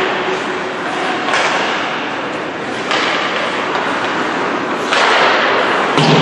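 Ice hockey play on an indoor rink: a steady hiss of skates on the ice, broken by several sharp knocks and thuds of sticks, puck and boards, the loudest near the end.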